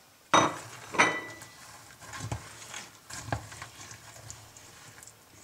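Wooden spatula stirring pecans through thick sugar syrup in a stainless steel saucepan: two sharp knocks against the pan in the first second, then softer scrapes and a couple of lighter clicks.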